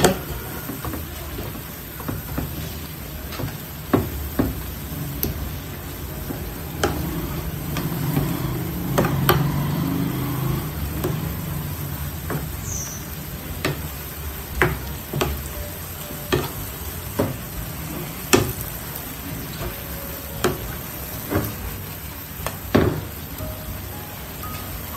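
Ground pork sizzling in a wide stone-coated frying pan with soy sauce, being stirred with a spatula that knocks and scrapes against the pan every second or so.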